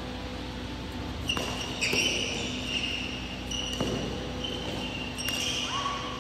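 Badminton shoes squeaking on the court mat in a run of high-pitched squeaks starting about a second in, with a few sharp racket-on-shuttlecock hits, over a steady hum from the hall.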